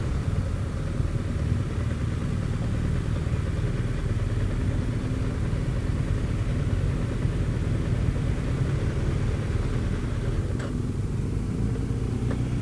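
Motorcycle engine running steadily at low revs, a low even rumble, as the bike rolls slowly at walking pace or idles.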